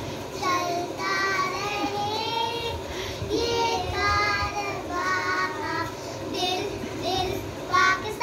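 Two young children, a girl and a boy, singing a song together.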